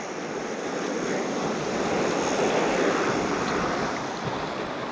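Surf washing onto a sandy beach: a steady rushing that swells to its loudest midway and then eases off.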